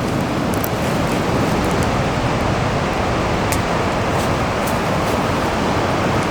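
Steady heavy rushing of rain and running water, with scattered sharp ticks of single drops.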